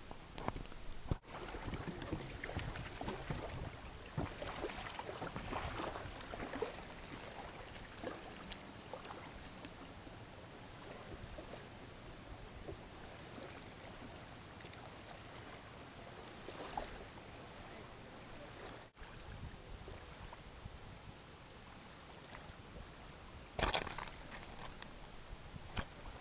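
Choppy water lapping and splashing around a small model outrigger sailing canoe as it moves, a steady rushing wash. There is a short louder burst near the end.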